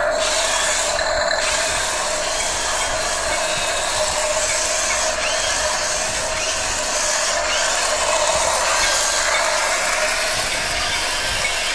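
Toy RC tank's electric drive motors and plastic gearboxes whirring steadily, with a rattling, ratchet-like grind as it drives on a tiled floor.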